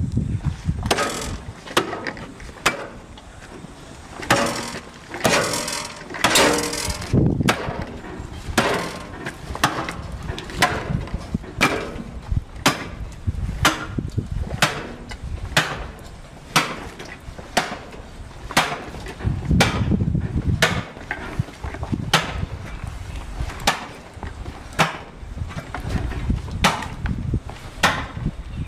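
Meat cleaver chopping down through the backbone of a hanging beef carcass: steady repeated blows, about one to two a second, each a sharp crack of blade into bone.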